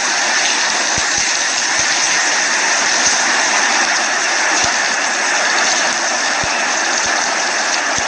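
Heavy hurricane rain, a loud, steady, unbroken rushing hiss.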